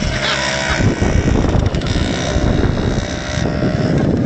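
Small motorcycle engine running close by as the bike rides across grass, with wind buffeting the microphone.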